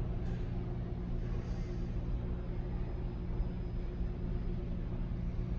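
Steady low rumble and hum of an underground BART subway station.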